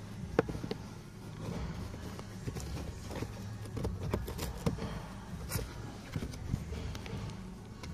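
Scattered light plastic clicks and knocks as hands handle the cabin-filter cover on the plastic heater/air-conditioning housing, over a steady low hum.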